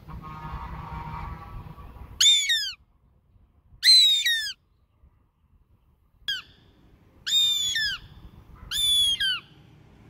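Goshawk calling: four loud bursts of rapid, high, down-slurred notes, each about half a second long, with one short note between the second and third. A low rumble runs underneath before the calls begin.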